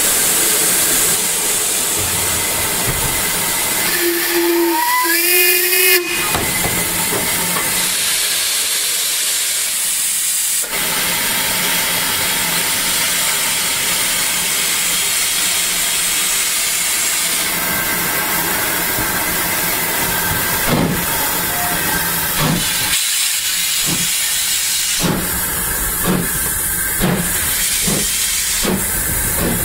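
Steam locomotive blowing off a loud, continuous hiss of steam from its open cylinder drain cocks. A steam whistle gives a short toot about four seconds in. In the last third, a run of short, sharp beats comes about once a second.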